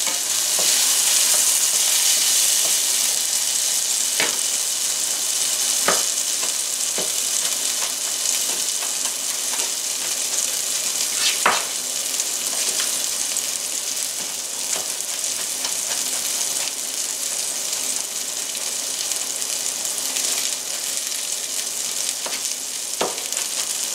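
Sliced mushrooms sizzling in butter in a stainless steel skillet, a steady frying hiss. A few scattered light knocks sound over it, the sharpest about halfway through.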